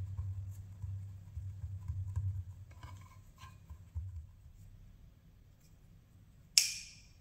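Palms pressing and flattening a ball of soft dough on a wooden board: a low, uneven rubbing rumble with a few light knocks for about the first four seconds, then it goes quiet. Near the end comes one short, sharp noise as a Nutella jar is handled.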